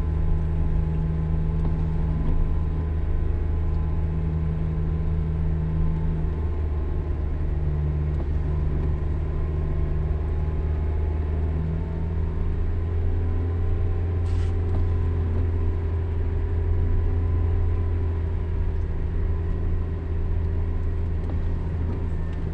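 Car engine pulling steadily in low gear up a steep hill road, a steady low drone.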